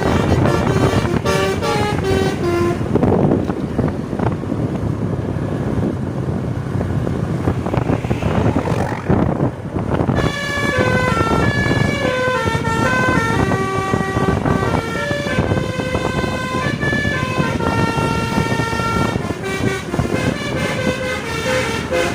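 Tourist bus's multi-note telolet air horn (basuri type) playing a melody of stepped, held notes. The tune breaks off about three seconds in for a noisy stretch of several seconds, then starts again about ten seconds in and runs on.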